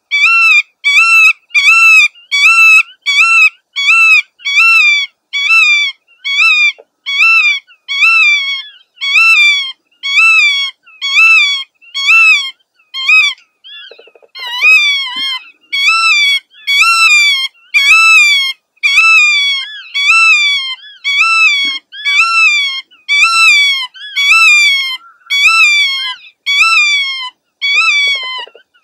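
Black-tailed godwit calling over and over, a steady run of rising-and-falling calls about one and a half a second, with a short break about halfway.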